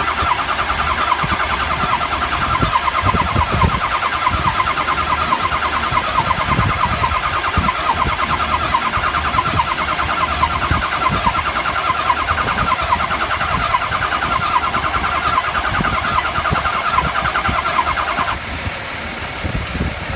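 Ford 6.0L Power Stroke V8 diesel cranking on its starter with a fast, even rhythm for about eighteen seconds without catching, then stopping: a no-start even with the high-pressure oil pump replaced.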